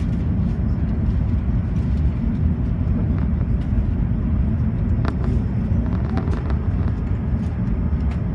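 Cabin noise inside an Airbus A380's upper deck: a steady low rumble from the aircraft, with a few faint rattles about five seconds in.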